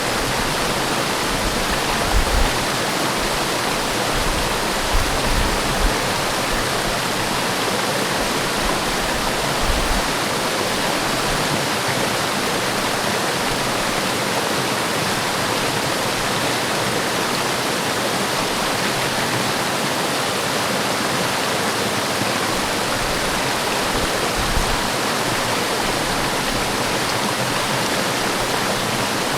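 Forest waterfall: a steady, full rush of falling water, with a few brief low thumps in the first ten seconds and once more later on.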